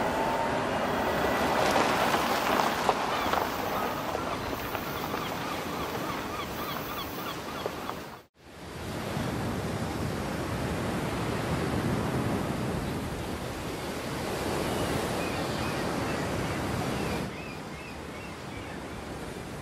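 Sea surf washing onto a beach, with wind, and short runs of faint high chirps now and then. The sound cuts out for an instant about eight seconds in and drops in level near the end.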